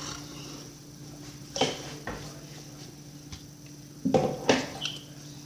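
A few light knocks and clatters, once about a second and a half in and two close together near the end, over a steady low electrical hum.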